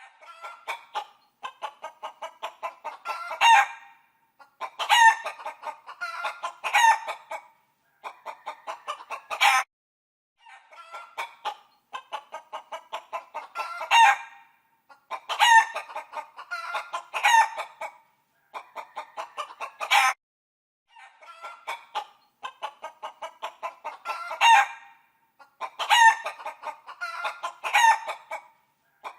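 Hen clucking in quick runs of short clucks. Each run ends in a louder, drawn-out squawk, and the pattern repeats every few seconds.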